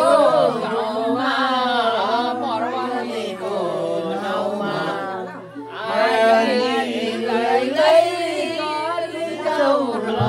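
A group of people singing a Nepali folk song together without instruments, with a brief break about five and a half seconds in.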